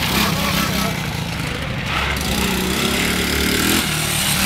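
ATV (quad bike) engine running, its pitch rising as it revs for a second or so midway through.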